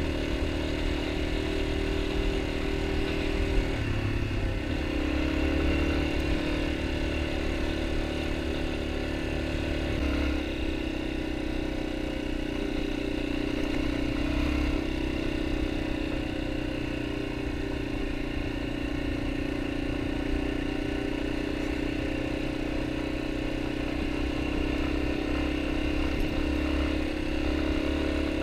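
Yamaha XT250's single-cylinder four-stroke engine running steadily while the motorcycle rides along, its note shifting slightly in pitch about four and ten seconds in.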